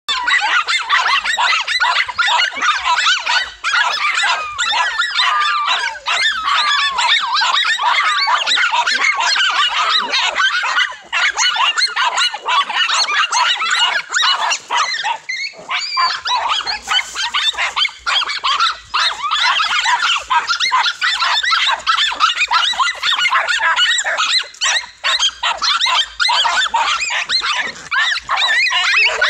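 A pack of several dogs barking and yapping at once, many voices overlapping without a break, with a brief lull about halfway through. It is the excited barking of dogs baiting a cornered lizard.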